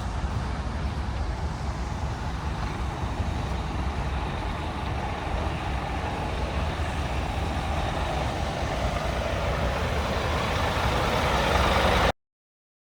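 Scania P320 truck's diesel engine running with a steady low rumble, growing gradually louder and busier over the last several seconds, then cutting off abruptly.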